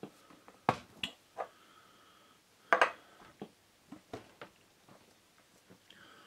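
Cut sections of an empty aluminium whipped-cream spray can being forced together by hand, giving a string of sharp metallic clicks and knocks, the loudest a double knock about halfway through.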